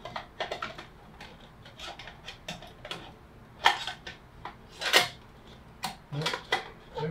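Stainless steel berry screen of a Weston tomato strainer clinking and scraping against the metal housing as it is worked into place, a stiff, finicky fit. A string of small metal clicks, with two louder knocks a little past three and a half seconds and about five seconds in.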